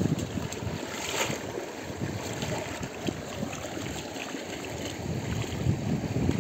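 Water running along a shallow irrigation ditch and splashing as an uprooted, muddy plant stem is washed in it by hand, with one brighter splash about a second in. Wind buffets the microphone in low rumbles.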